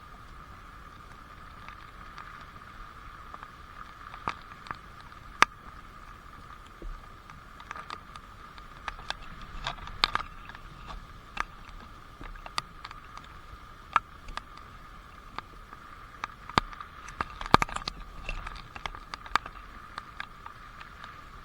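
Water drops falling irregularly onto a surface as separate sharp taps, some loud, over a steady high-pitched background hum.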